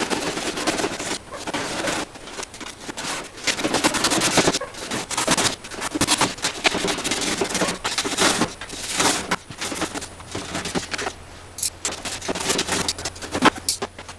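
Irregular scraping and crackling with many scattered sharp clicks, uneven in loudness.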